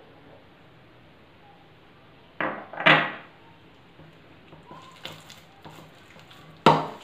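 Two loud knocks of a small glass bowl, a couple of seconds in, as gram flour is tipped out of it and the bowl is set down on the counter. Then hands mix minced meat in a bowl with soft irregular clicks, and there is one more sharp knock of dishware near the end.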